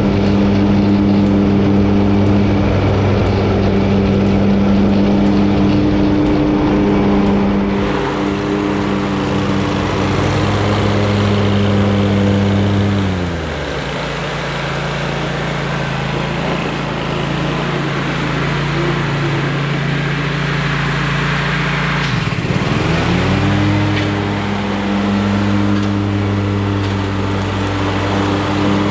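Kohler EFI engine of an Exmark Turf Tracer walk-behind mower running steadily. About 13 seconds in, its pitch falls to a lower engine speed, and about ten seconds later it climbs back up.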